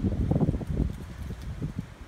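Wind buffeting the microphone: uneven low rumbling gusts that die down near the end.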